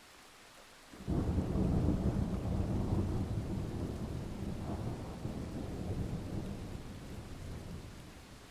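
A thunder rumble that starts suddenly about a second in, deep and loud, then fades slowly over several seconds, over a faint steady hiss of rain.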